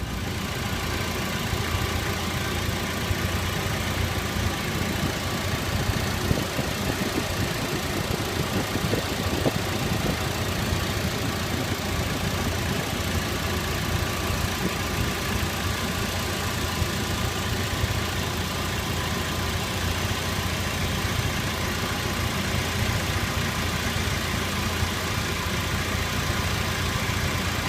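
Car engine idling steadily, with the timing-chain noise that the owner suspects of being a worn chain.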